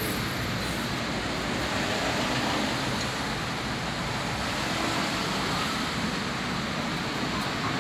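Steady rushing background noise with no clear strokes or clicks.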